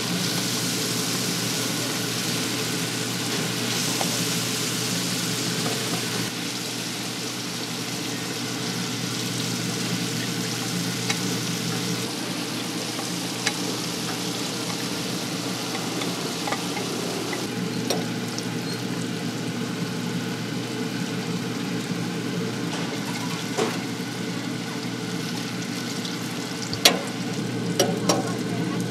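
Battered taro cakes deep-frying in a vat of hot oil: a steady sizzling, bubbling hiss. A low steady hum runs underneath, and a few sharp clicks come near the end.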